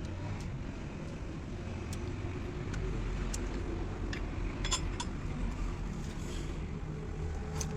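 Steady low mechanical rumble with scattered light clicks and taps, a few seconds apart.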